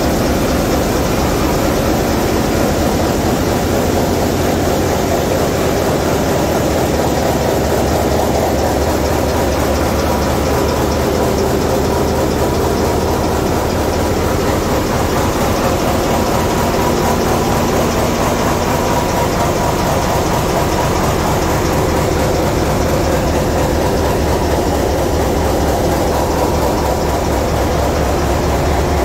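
Large diesel main engines of a cruise ship running in the engine room: a loud, steady machinery drone with a fast, even low throb underneath.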